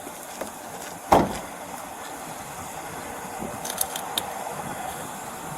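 A single sharp knock about a second in, then a few light clicks near the middle, over a steady background hiss: hard handling of a car's body or interior panels during a search.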